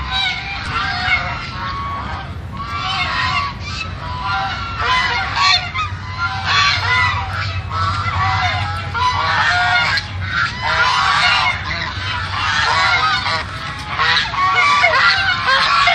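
A flock of white domestic geese honking, many overlapping short calls one on top of another without a break.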